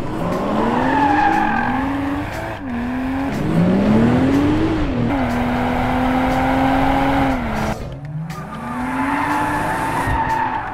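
BMW 2 Series Coupé engine and exhaust revving hard as the car is driven: the pitch climbs in several pulls, drops back between them, and holds steady at high revs for a couple of seconds in the middle. It dips briefly about three-quarters of the way through before climbing again.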